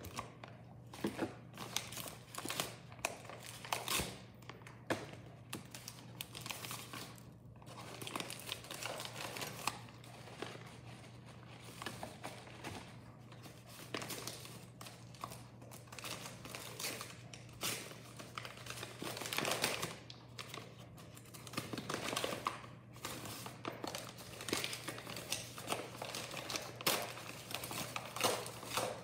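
Brown paper wrapping crinkling as it is unwrapped by hand, in irregular rustles all through, with louder stretches past the middle.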